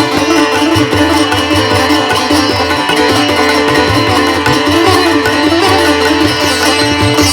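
Background music in an Indian classical style, with a plucked string instrument like a sitar and hand drums like tabla.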